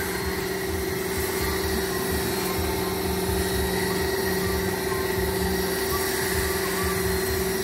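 A small motor running steadily with a constant hum, from the machinery used for filling and spraying the tanks.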